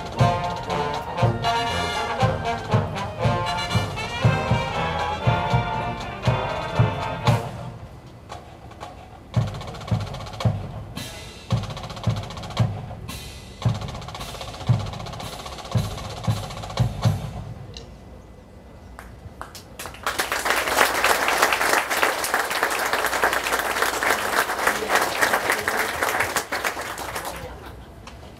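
Military band playing brass and drums, then the drums alone keep beating for about ten seconds before stopping. About twenty seconds in, an audience applauds for several seconds.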